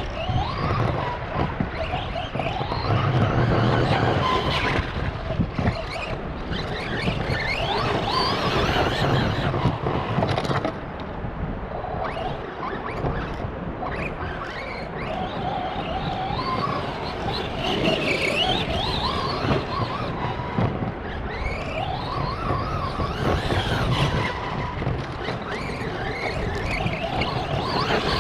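Arrma Big Rock radio-controlled monster truck running laps, its electric motor whine rising and falling over and over with the throttle, over a steady rush of tyre and drivetrain noise. The truck has just been rebuilt, with a new differential.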